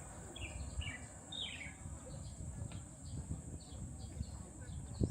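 Small birds chirping in short, falling notes, several in quick succession in the first two seconds and then fainter ones. Under them runs a steady high insect buzz.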